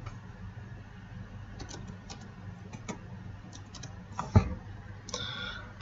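Computer keyboard keys clicking in short, irregular runs as a word is typed, over a faint, steady low hum.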